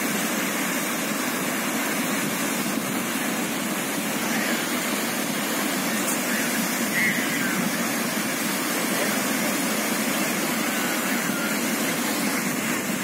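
Steady rushing of sea surf breaking and washing on the shore.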